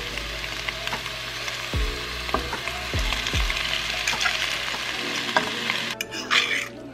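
Stir-fry of kale, red pepper and onion sizzling in a nonstick frying pan as rice noodles are tipped in and stirred through with a utensil; the sizzle drops away about six seconds in.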